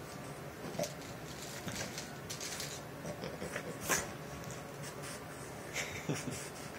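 An adult Boston terrier and its puppy play-wrestling and mouthing on a quilted bedspread: scattered soft rustles and small mouth sounds, with one sharp click about four seconds in.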